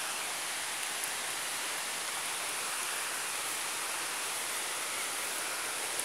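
Steady rush of a river's flowing water, an even hiss with no breaks.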